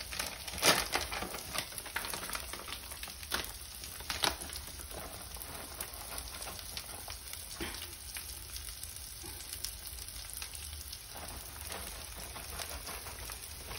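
An egg-and-vegetable mixture sizzling steadily in a nonstick frying pan over a propane burner. A few sharp clicks and taps come in the first few seconds.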